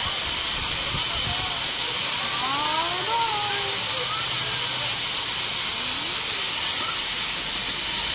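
Miniature live-steam locomotive venting steam in a loud, steady hiss that starts abruptly and holds at an even level without any chuffing.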